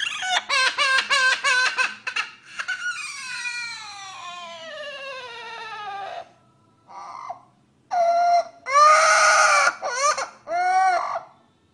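An animal crying out: a quick run of sobbing cries, then one long wail falling steadily in pitch, and after a short pause several more loud, rising-and-falling cries.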